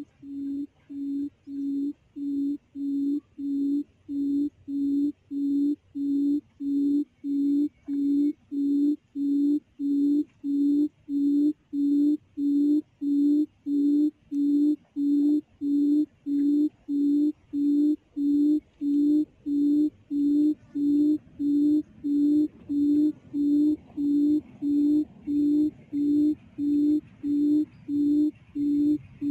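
Recorded quail call played from a speaker as a trapping lure: one low hooting note repeated at an even beat, about one and a half a second, growing louder over the first several seconds.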